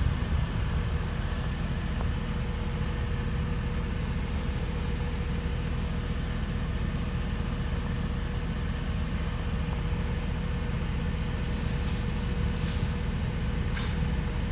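A steady low mechanical hum with a constant higher tone over it, with a few faint short hisses near the end.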